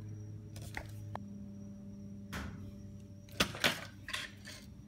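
Handling noise: a few light clicks and knocks, the loudest two about three and a half seconds in, over a steady low hum.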